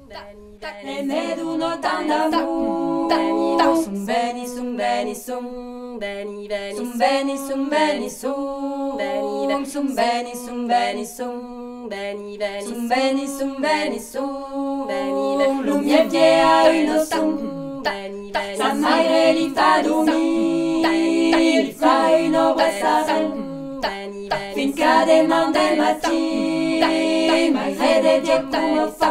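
A cappella vocal ensemble singing a folk song in several voice parts, with a low note held steadily beneath the moving melody.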